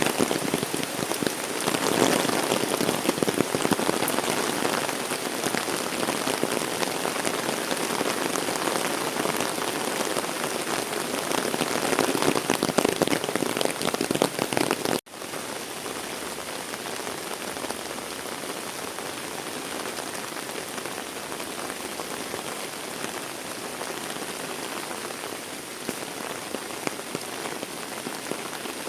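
Heavy rain falling, a dense steady hiss full of small drop impacts. About halfway through it cuts out for an instant and comes back a little quieter.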